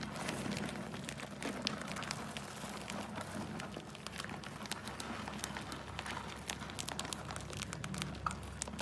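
Many mice scrambling over one another in a plastic bucket: a dense, irregular scratching and rustling of claws and bodies against the plastic.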